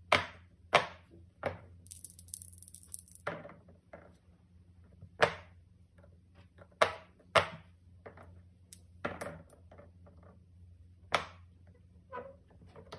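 Silicone pop-it fidget toy bubbles pressed in by fingers: about ten single sharp pops at uneven intervals.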